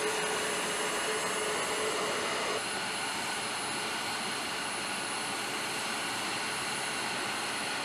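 Steady machine noise on an aircraft flight line: an even hiss carrying faint high, constant whines. A low hum drops out about two and a half seconds in.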